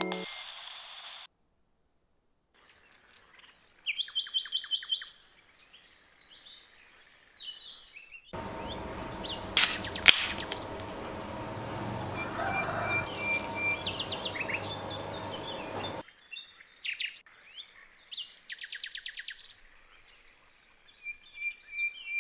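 Small birds chirping and twittering in short, fast trills, in groups with gaps between them. In the middle stretch they sit over a steady noise with a low hum, broken by two sharp clicks.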